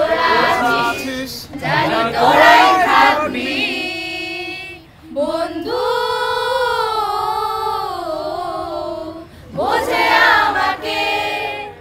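A group of young voices, mostly female, singing a song together. Short sung phrases give way to one long held note in the middle, its pitch wavering slightly, and then quicker phrases return near the end.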